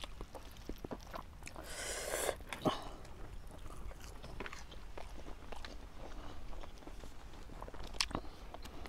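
Close-miked eating by hand: chewing, lip smacks and small wet clicks as mouthfuls of rice and chicken curry are taken and eaten, with a brief rustling hiss about two seconds in.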